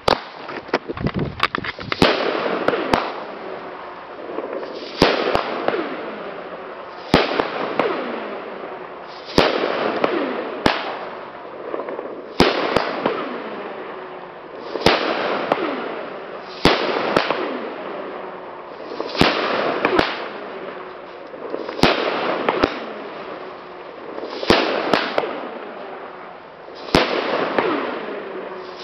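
Pyrostar bang cake (knalcake) firing its shots at a slow, even pace. Each shot is a loud, sharp bang followed by a fading hiss, about one every two seconds.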